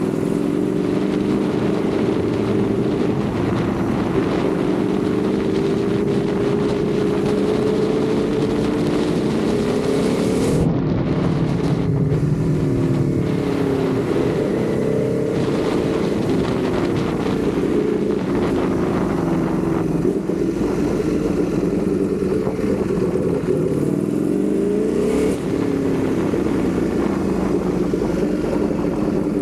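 Ducati Panigale V4 motorbike's V4 engine running under way, its pitch rising and falling as the rider works the throttle and changes gear, with a sharp rise and break about a third of the way in.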